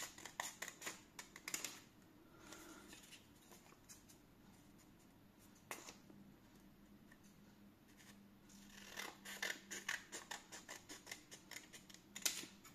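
Scissors snipping through a folded sheet of coloured paper: a run of quick snips in the first two seconds, a single snip near six seconds, then another run of snips from about nine seconds on.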